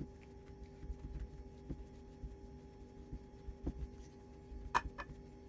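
Wooden spatula mashing boiled potatoes in a stainless steel bowl: soft dull thuds, with two sharper knocks close together near the end, over a faint steady hum.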